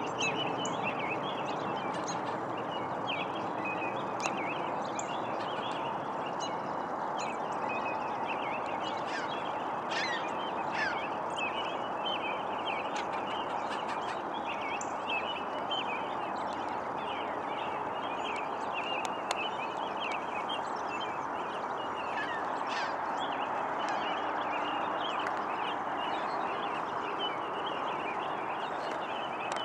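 Many birds chattering and calling without pause over a steady rushing noise.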